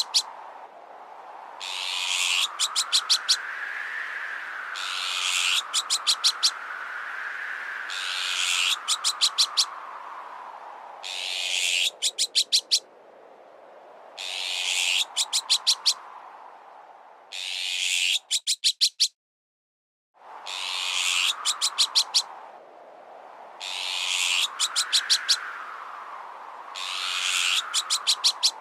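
Bird-repellent sound-effect mix: about every three seconds a short harsh call is followed by a quick run of sharp clicking strikes, over a whistling wind tone that slowly rises and falls. The sound cuts out completely for a second or so about two-thirds of the way through, then the loop starts again.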